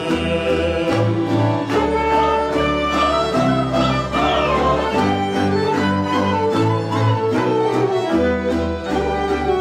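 Romanian folk band playing an instrumental interlude with no singing: violins carry the melody over a stepping double-bass line and a steady plucked-string beat.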